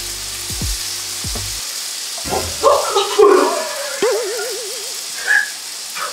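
Pasta frying in a pan with a steady sizzle. Background music plays for the first second and a half, then gives way to edited-in sound effects, including a wobbling tone about four seconds in.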